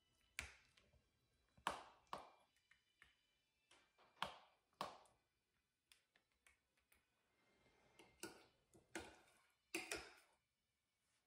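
Spoon clinking and tapping against a glass mixing bowl and a foil baking pan while a soft cheese mixture is scooped and spread: about ten light, irregular taps, some ringing briefly.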